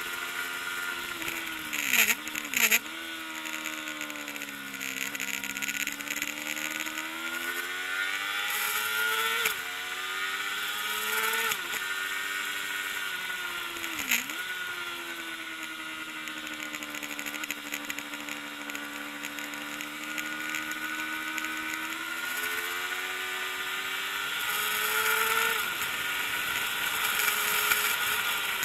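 Kawasaki ZXR400 inline-four race engine running hard through the gears, its pitch climbing and falling over and over with abrupt dips at the gear changes. There are two short loud bursts about two seconds in, over a steady hiss.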